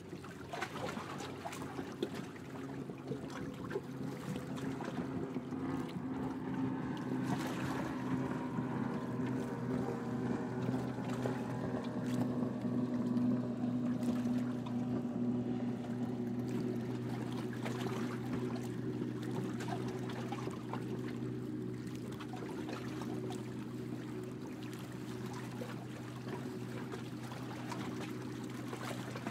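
Narrowboat engine running steadily, growing louder towards the middle and then slowly fading.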